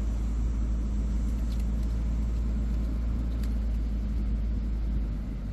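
Steady low rumble with no speech, easing slightly near the end.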